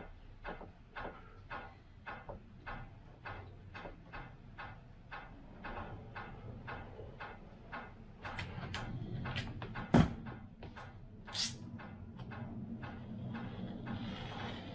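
Light, regular clicking, about two clicks a second, then louder handling on the bench with one sharp knock about ten seconds in.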